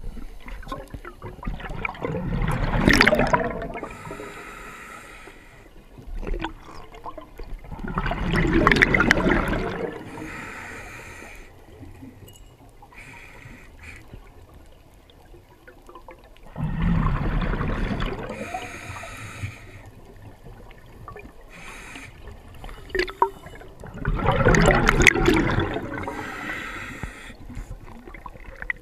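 A diver breathing underwater: four slow breaths about seven seconds apart, each a loud two-second rush of bubbling, with a fainter hiss between them.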